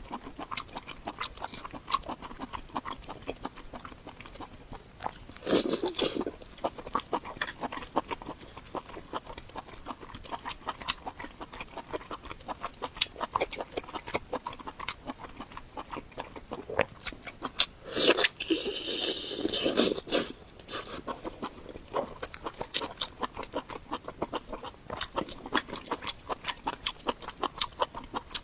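Close-miked eating: chewing and biting with many small wet mouth clicks, and two louder, noisier stretches about six seconds in and again around eighteen to twenty seconds in.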